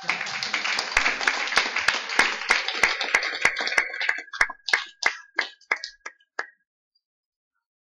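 Audience applauding: dense clapping of many hands that thins to a few scattered claps and stops about six and a half seconds in.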